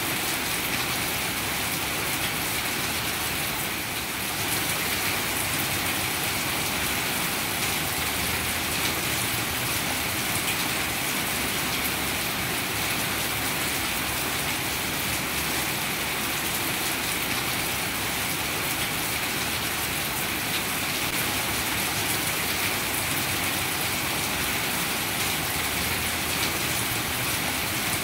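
Heavy rain falling steadily on grass, leaves and water-filled plant pots.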